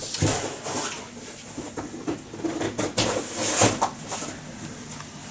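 Handling noise: brief paper rustles and light clicks and knocks as the paper instruction manual is handled on the table top, busiest a little past the middle.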